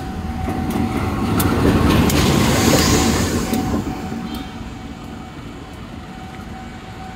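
CC 201 diesel-electric locomotive (a GE U18C type) running light past at close range, its engine and wheels on the rails. The sound swells to its loudest about two to three seconds in, then fades as it moves away.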